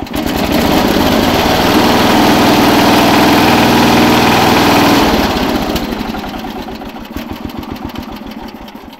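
Riding lawn mower's old Briggs & Stratton engine revved up hard for about five seconds, then throttled back and winding down.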